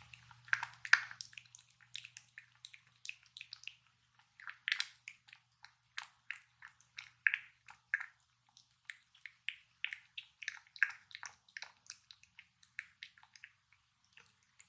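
Tonkinese cat eating a treat: a run of small, irregular wet smacking and licking clicks as it chews and laps, several a second.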